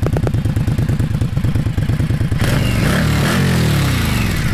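Indian Scout's V-twin engine running through its stock exhaust, the exhaust pulses steady, with the note bending down and up once about three seconds in.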